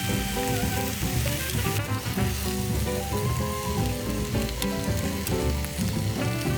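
Beef tongue slices sizzling as they grill on a hot pan, a steady hiss with small spattering crackles. Background music plays under it.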